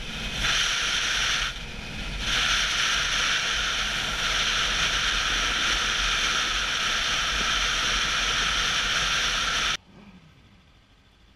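Wind rushing over a motorcycle rider's helmet-mounted action camera at highway speed: a loud, steady rushing hiss with a low buffeting rumble, dipping briefly twice in the first couple of seconds. Near the end it cuts off abruptly to a much quieter background.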